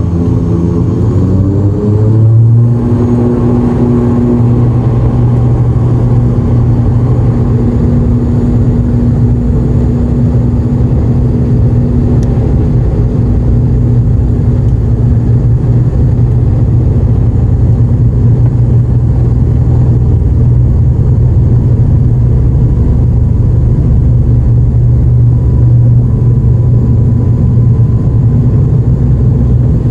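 An ATR 72-600's twin turboprop engines and propellers, heard from the cabin. The pitch rises over the first couple of seconds as the engines spool up to takeoff power, then settles into a loud, steady drone for the takeoff roll.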